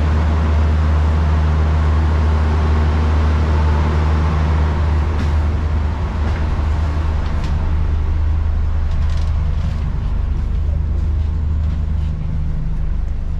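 Steady low drone of a stationary diesel passenger train's engines, with a few faint clicks in the middle.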